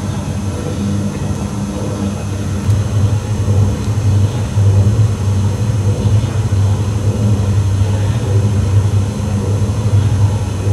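A continuous low droning hum with a few overtones above it, swelling and fading slightly in level.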